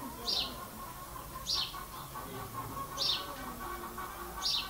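A small bird chirping: four short, high, downward chirps, evenly spaced about every second and a half.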